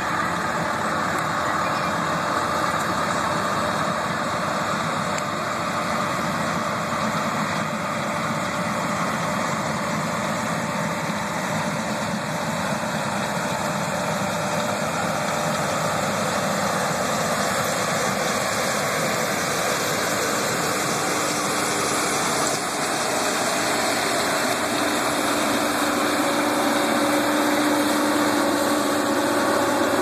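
Cat Lexion 580R combine harvester running as it cuts soybeans: a steady machine noise that grows louder over the last several seconds as the combine comes close, with a steady hum rising out of it.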